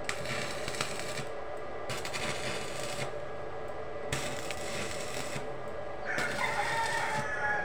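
Stick (arc) welding with an electrode rod, tack-welding square bar to steel matting: the arc crackles and sizzles in four short runs of about a second each, with brief pauses between them. A rooster crows in the background near the end.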